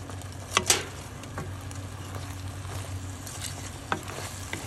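Wooden spatula stirring and tossing egg noodles and glass noodles in a pan, with a soft sizzle of the simmering broth. Two sharp knocks of the spatula against the pan come about half a second in, and two lighter ones near the end, over a steady low hum.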